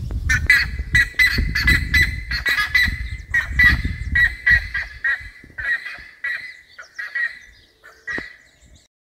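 Buff-necked ibis (curicaca) calling: a rapid series of loud, honking calls, about four a second at first, slowing and fading toward the end. A low rumble lies under the first few seconds.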